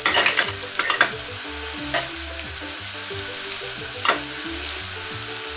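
Chopped shallot and garlic sizzling steadily in hot olive oil in a frying pan, with a few light clicks.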